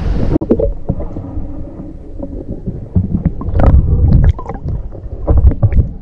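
Sound picked up underwater by a submerged camera in a river: a muffled low rumble of moving water with irregular clicks and knocks, heaviest from about three seconds in.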